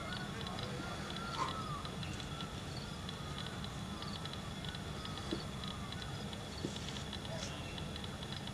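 Open-air ambience: faint distant voices over a steady low hum and a steady thin high tone, with a couple of light clicks near the end.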